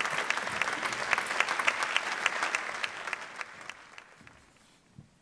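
Audience applauding, a dense patter of many claps that thins and dies away about four seconds in.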